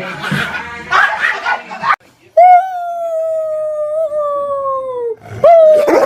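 A dog howling: one long, drawn-out howl that sinks slightly at its end, followed by a shorter howl that rises and falls. Before the howls there are a couple of seconds of broken, noisy sound.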